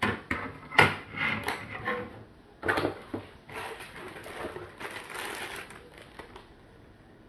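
Clear plastic packaging bag crinkling and rustling as it is handled, after a few sharp clicks and knocks of objects being picked up from a cardboard box. The crinkling fades out about six seconds in.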